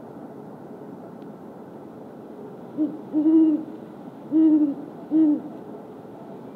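Male great horned owl giving its territorial hoot: a run of deep hoots, a short note then a longer one, a brief pause, then a longer and a short note.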